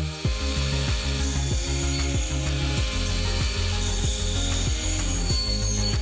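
Bandsaw cutting through thin wooden board, a steady rasping hiss, over background music with a steady beat.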